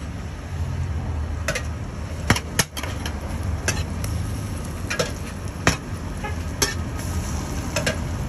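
A metal spatula clicking and scraping against a metal frying pan while turning bean fritters in hot oil: sharp, irregular clicks about once a second over a steady low rumble.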